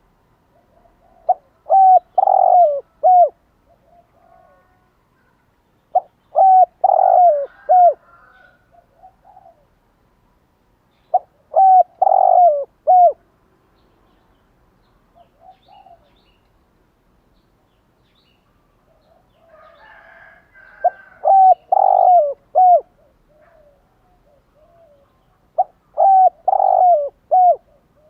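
Spotted dove cooing: five calls, each a quick phrase of three or four mellow coo notes lasting about two seconds, repeated every few seconds with a longer pause in the middle. Faint small-bird chirps between the calls.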